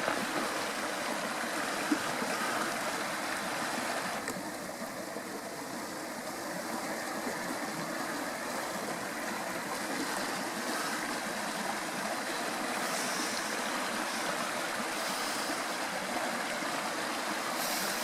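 Steady rushing noise like running water, with no clear beat or tone, easing slightly about four seconds in.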